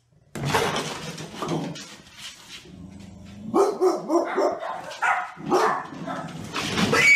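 Dog barking repeatedly in loud, short calls, starting suddenly about a third of a second in.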